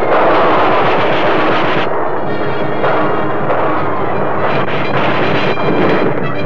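Cartoon gunfire sound effects: a dense, rapid machine-gun rattle mixed with bangs, loudest in the first second, over an orchestral score.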